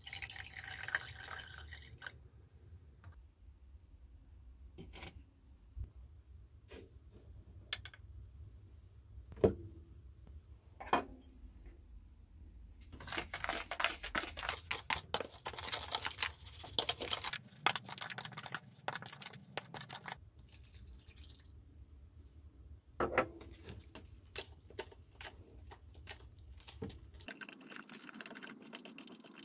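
Vinegar poured into a small glass jar, then a metal spoon clinking and scraping as it stirs flour and salt in a plastic bowl, with a long stretch of steady scraping about halfway through. Near the end the spoon works the wet flour, salt and vinegar paste.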